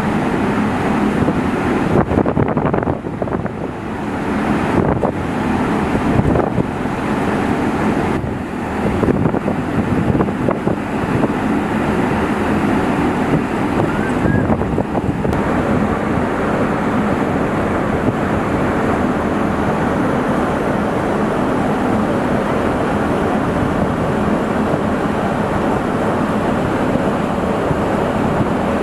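Wind buffeting the microphone over a steady low mechanical hum. The gusts come and go through roughly the first ten seconds, then the noise settles into an even rush.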